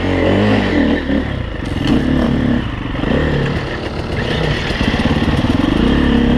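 Husaberg FE350's single-cylinder four-stroke dirt-bike engine running under the rider, its revs rising and falling with the throttle as the bike is ridden slowly over rough trail.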